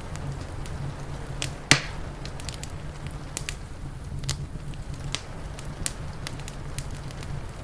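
Wood fire crackling, with scattered sharp pops and one loud snap a little under two seconds in, over a steady low rumble.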